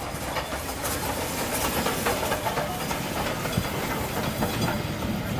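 Peppercorn A1 Pacific steam locomotive 60163 Tornado passing at close range, a steady hiss and rumble of steam and wheels on the rails.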